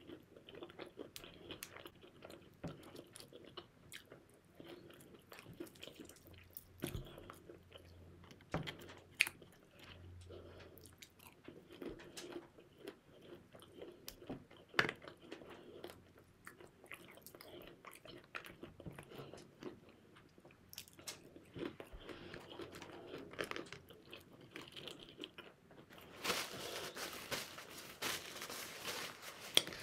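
Someone chewing and biting into crispy fried chicken wings, with scattered faint crunches. Near the end a paper napkin rustles as the hands are wiped.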